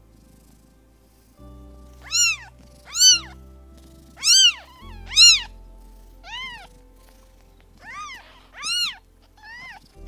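A cat meowing: about eight short, high-pitched meows starting about two seconds in, over background music.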